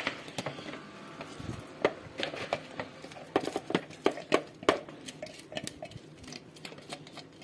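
Light, irregular taps and scrapes of a spatula and a plastic chopper bowl against a mesh sieve, with soft squishing as minced onion is scraped in and pressed to drain its juice.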